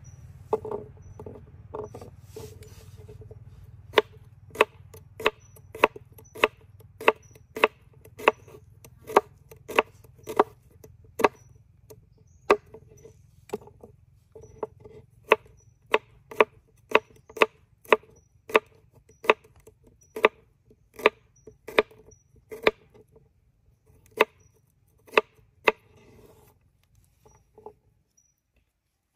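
A steady series of sharp chopping blows, about two a second, each with a short hollow ring, with a brief pause about halfway.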